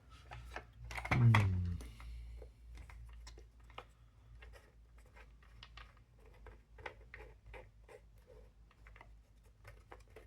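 Small irregular clicks, taps and scrapes of puzzle-box pieces being handled and turned. About a second in there is a short, louder low hum that falls in pitch.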